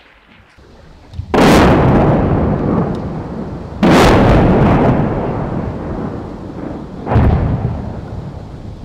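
Three heavy artillery blasts about two and a half to three seconds apart, each followed by a long rolling rumble that dies away slowly.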